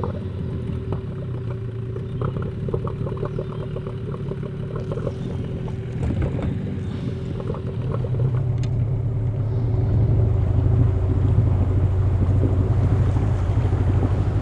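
Boat's outboard motor running steadily under way, with irregular short knocks over the first half. The motor's low hum grows louder about two thirds of the way through.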